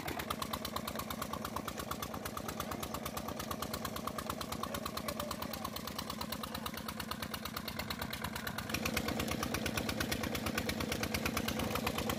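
Old Petter diesel engine running steadily with a fast, even exhaust beat while it drives a water pump by its pulley. The sound gets somewhat louder about nine seconds in.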